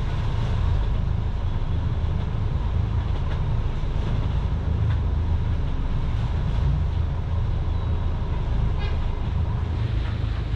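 A catamaran's diesel engines running steadily at low revs, a constant low rumble, while the boat is manoeuvred into a fuel dock.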